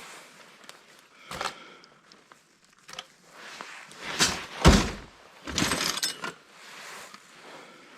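Hard scrap laptop parts being handled and set down: a few separate knocks, the loudest a deep thud about halfway through, then a short clatter about six seconds in.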